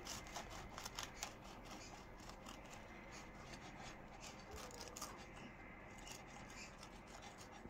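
Knife cutting through a baked scone, faint scratchy crackling of the blade through crust and crumb, with a run of small ticks that is busiest in the first few seconds.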